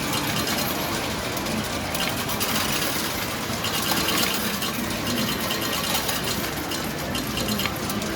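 Gacha Mambo! Jr. medal-pusher machine with many metal medals clicking and rattling against each other as the pusher shoves them over the edge, over a steady game-centre din.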